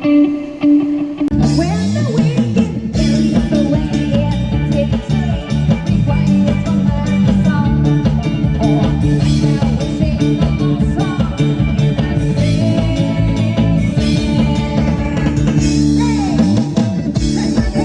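Live rock band playing together during a soundcheck: electric bass, drum kit and guitar. A held chord rings for about the first second before the full band comes in, with the bass sliding in pitch a couple of times.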